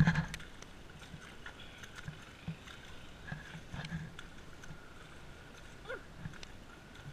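Footsteps and horse hooves squelching through wet mud at a walk, as low irregular thuds with scattered clicks, opening with one loud thump.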